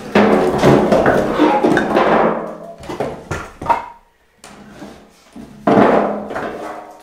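Split firewood clattering as pieces are lifted out of a metal wheelbarrow and stacked on a woodpile: a dense run of wooden knocks at first, then scattered knocks and another clatter near the end.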